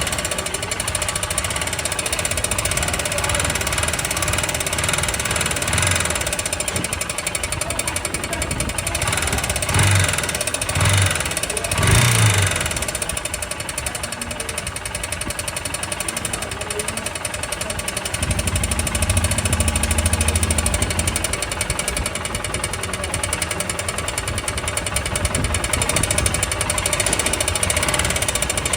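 Royal Enfield Himalayan single-cylinder engine running with a rapid, even knocking, which the owner takes for piston noise. It grows louder briefly about ten and twelve seconds in, and for a few seconds from about eighteen seconds in.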